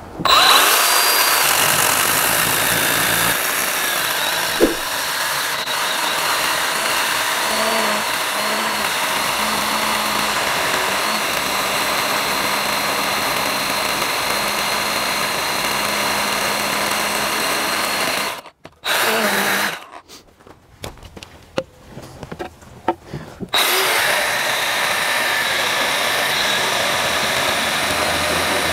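Milwaukee Hatchet 6-inch cordless pruning chainsaw running steadily with a high motor whine as it cuts through a 6.5-inch log of seasoned apple wood. About 18 seconds in it stops, runs in short spurts for a few seconds, then cuts steadily again near the end.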